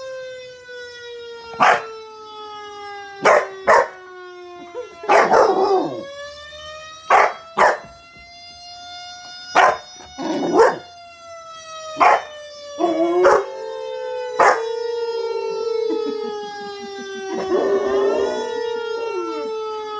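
A siren sound wails in long, slow rises and falls while a Bouvier des Flandres puppy yaps about a dozen short, sharp barks. Near the end an adult Doberman Pinscher joins in with a wavering howl.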